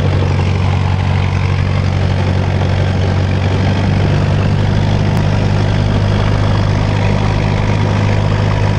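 Cessna 172's piston engine and propeller running steadily at low power while the plane taxis, heard from inside the cabin as a constant, unchanging drone.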